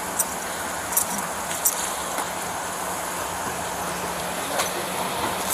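Steady background noise with a low hum, broken by four short, sharp clicks.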